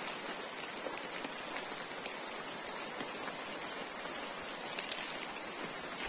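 Steady hiss of rain falling on the forest, with a bird calling a quick series of about nine short, high notes, roughly six a second, about two seconds in.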